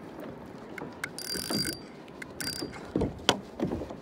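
Fishing reel giving two short mechanical ratcheting buzzes, the first about a second in and a shorter one near 2.5 s, followed by a sharp click and a few low knocks around three seconds in.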